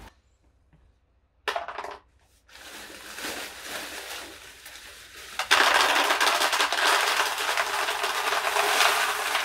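Expanded clay pebbles poured from a plastic bag into a plastic planter: a loud, continuous rattling clatter that starts about five and a half seconds in. Before that, a brief crackle as the bag is snipped open with scissors, then the plastic bag rustling as it is handled.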